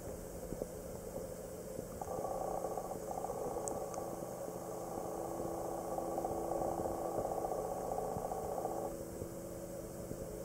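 Muffled underwater noise from a camera held below a pond's surface: a steady rushing that grows louder about two seconds in and eases off near the end.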